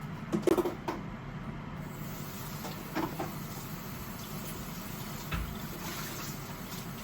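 Kitchen cooking sounds: a few knocks and clinks of cookware and utensils near the start and about three seconds in, and a soft thud later, over a steady hiss that comes in about two seconds in.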